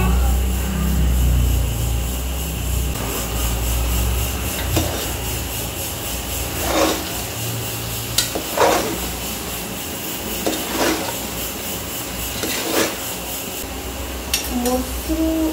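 A metal spoon stirring and scraping meat and masala around an aluminium pressure cooker, with about four louder scrapes in the second half, over a steady low hum.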